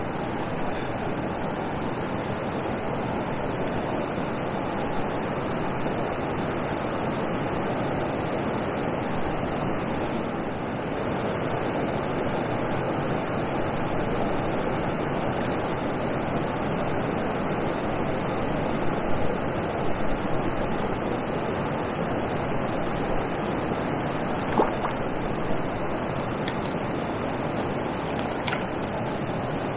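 Steady rush of water pouring over a river weir, mixed with wind. A few light knocks come in the second half.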